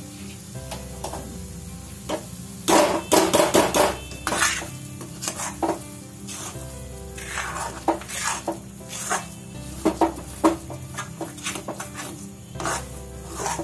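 Metal spatula scraping and clanking against a metal kadhai, stirring a cooked mix of grated coconut and sugar, in irregular clusters of strokes with the loudest run about three seconds in.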